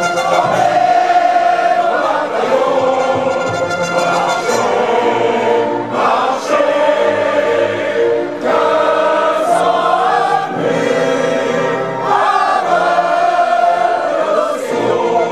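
Choral music: a choir singing long held notes that change every second or two.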